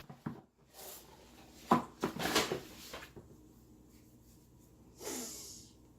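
A few sharp clicks and knocks, then short rustling and scraping bursts, from cooking items being handled on a kitchen counter.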